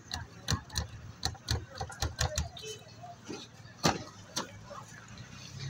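Irregular tapping knocks, about two or three a second, as fingertips press and dimple naan dough on a wooden board, then a single louder knock about four seconds in as the dough is laid into a metal tray of sesame seeds.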